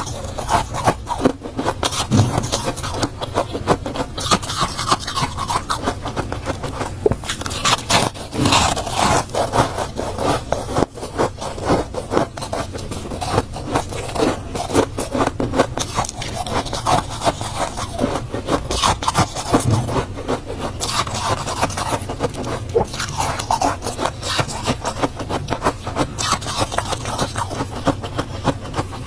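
Soft freezer frost being scraped: a dense, unbroken run of crisp scraping with many small crackles.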